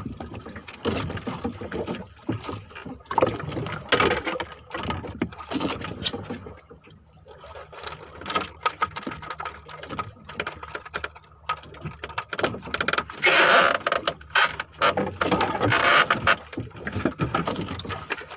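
Handline fishing gear being handled in a wooden boat: the plastic handline spool turned and line let out, with scattered clicks, rattles and knocks, and a louder rushing burst about two-thirds of the way through.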